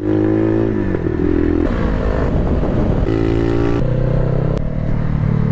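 Motorcycle engine running while riding, heard as a steady engine note that jumps in pitch abruptly several times, with one brief downward slide about three-quarters of a second in.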